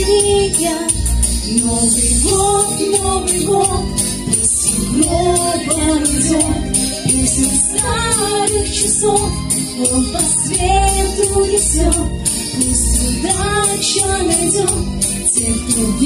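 A song sung with instrumental accompaniment and a steady low beat.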